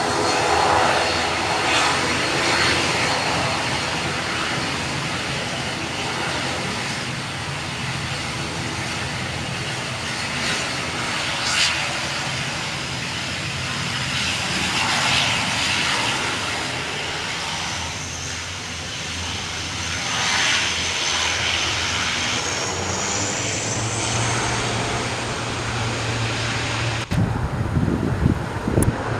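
Airliner engines running with steady noise and a high whine that rises in pitch about two-thirds of the way through. Near the end the sound changes abruptly to gusty, low rumbling.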